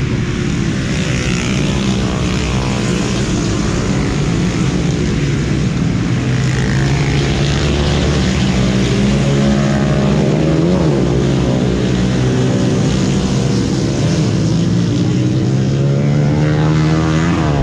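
Tuned 116cc underbone (bebek) drag bike engine running at a fast idle during setting. The throttle is blipped twice, about ten seconds in and near the end, the revs rising and dropping back.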